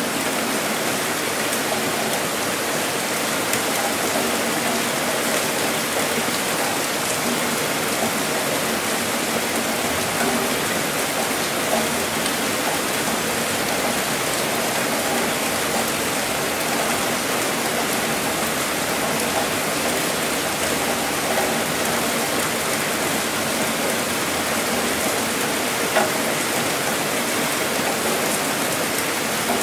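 Heavy rain falling steadily, an even hiss with a few sharper drop hits standing out now and then, one of them near the end.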